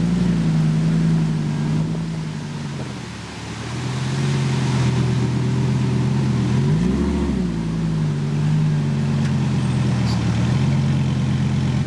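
Lamborghini engine running at low revs with a steady drone, with one quick throttle blip about seven seconds in that rises and drops straight back.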